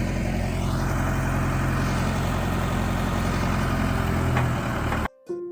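Diesel engine of a SkyTrak telehandler running steadily at a constant pitch. It cuts off suddenly near the end, and soft piano music begins.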